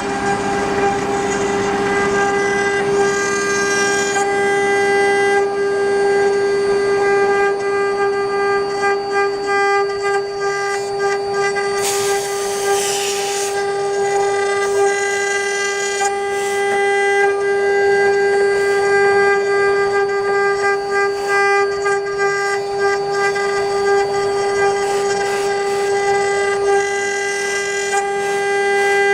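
AKM3020 CNC wood lathe running: a steady pitched machine whine over the rough noise of cutting wood, with a brief burst of hiss about twelve seconds in.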